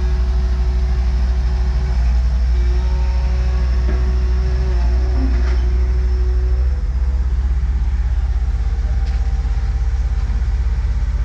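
Heavy diesel excavator engine running hard under load as it pulls on the chain to recover a sunken excavator from the mud; the deep rumble eases slightly about seven seconds in.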